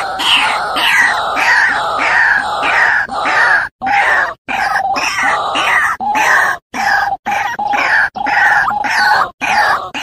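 Lure recording of white-breasted waterhens calling: harsh, croaking notes repeated about twice a second, broken by a few abrupt brief gaps.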